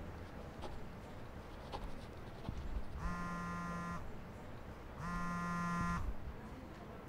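Mobile phone vibrating on a wooden table: two buzzes about a second long, a second apart, the alert for an incoming message.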